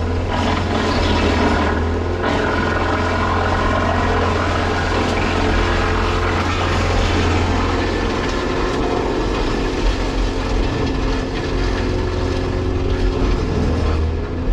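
Volvo 235EL excavator and a wood chipper running together, a steady loud machine drone with a constant low hum.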